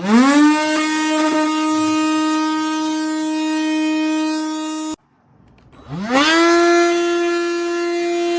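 Cordless handheld vacuum motor switched on, whining up quickly to a steady pitch and running for about five seconds, then switched off abruptly. About a second later it is switched on again and spins back up to the same steady whine.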